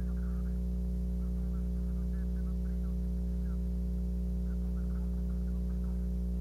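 Steady electrical hum with a stack of unchanging low tones, and faint short chirps coming and going above it.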